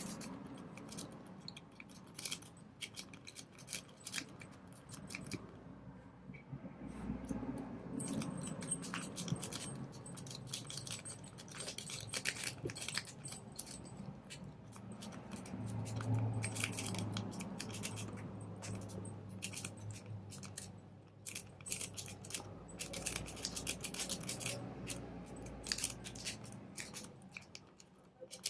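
Snake rake being worked in and out of a steel laminated padlock's keyway: a run of faint, irregular metallic clicks and scratches as the rake scrapes over the pin tumblers. The lock does not open.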